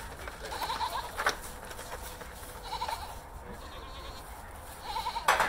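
Farm animal calling: four short, wavering calls spaced a second or two apart, with a few sharp knocks, the loudest near the end.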